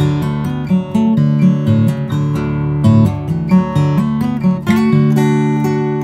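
Steel-string Epiphone acoustic guitar played fingerstyle, the long nails of the right hand plucking a steady flow of notes, bass notes moving under higher melody notes.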